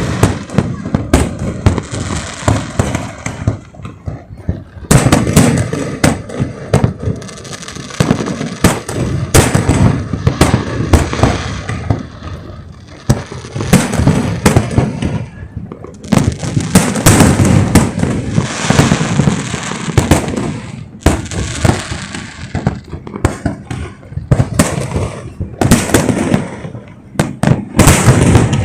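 Close-range aerial fireworks show: dense volleys of sharp shell bursts and crackling, coming in waves with brief lulls between them.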